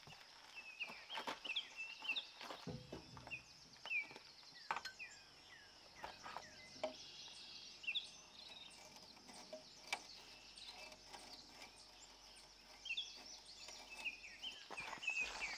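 Faint outdoor ambience: small birds chirping in short, quick notes throughout, with scattered light clicks and knocks.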